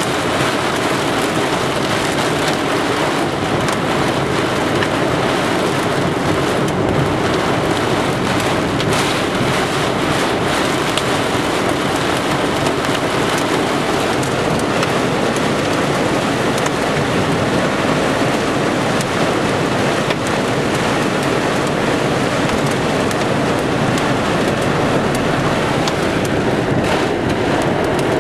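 Torrential rain pelting a car, heard from inside the car: a steady dense hiss with scattered sharp drop impacts.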